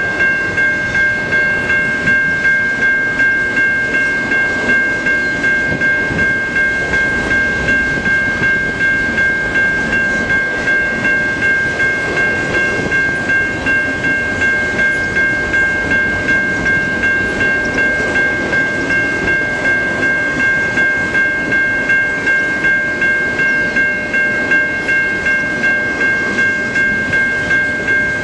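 Level-crossing warning bell ringing in quick, regular strokes, about two a second, over the rumble and wheel clatter of a long double-stack intermodal freight train rolling through the crossing.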